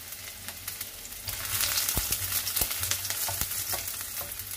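Sliced garlic sizzling and crackling in hot oil in a wok, getting louder about a second and a half in as a wooden spatula stirs it, with a few soft knocks of the spatula against the pan.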